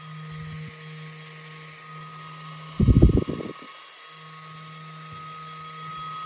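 Mini handheld fan's small electric motor running with a steady hum and a thin high whine. About three seconds in comes a loud, low, fluttering burst lasting under a second, and the hum stops for about a second before resuming.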